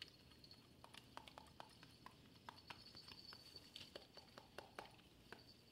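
Faint, quick clicking of two dogs licking and nuzzling each other's muzzles, mixed with light tinkles of the small bells on a dog collar.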